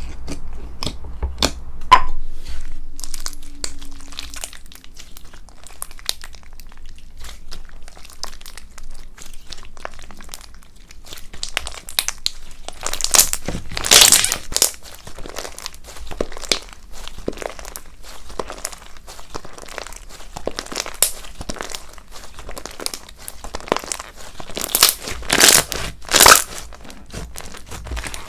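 Slime being squeezed and pressed by hand, giving a run of small crackling clicks with several louder bursts about halfway through and again near the end.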